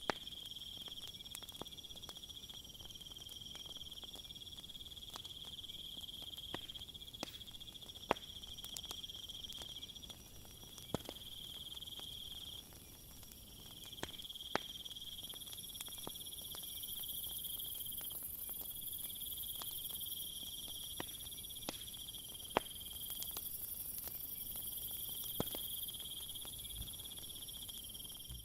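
Crickets trilling steadily, with a second, higher-pitched insect sound joining about halfway through, over the sharp pops and crackles of a campfire every second or two.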